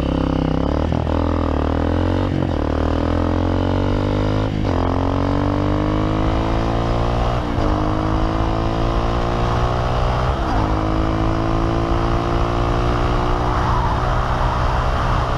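Honda CRF230F dirt bike's air-cooled single-cylinder four-stroke engine at full throttle, climbing in pitch through each gear with five upshifts, each gear pulling longer and more slowly than the last as the bike builds toward top speed.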